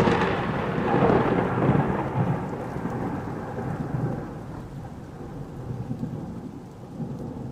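Thunder rumbling over rain, loudest in the first couple of seconds and then slowly fading into a long low roll.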